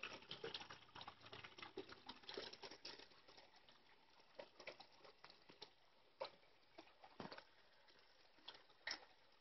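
Small garden rock waterfall: water trickling and splashing over stones into a pond, a faint, dense pattering that thins to scattered drips after about three seconds.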